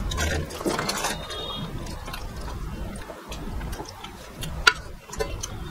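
Eating by hand from steel plates: fingers mixing and scraping rice and fish curry, with chewing and a string of small clicks against the metal, one sharper click near the end.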